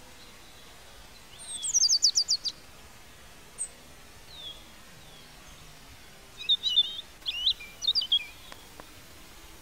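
Wild birds calling: a quick run of about seven sharp, high descending notes about two seconds in, a lone call, then a burst of twittering chirps near the end.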